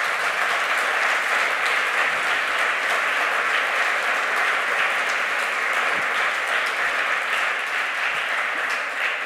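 Audience applauding: steady, dense clapping from a large crowd that begins to die away near the end.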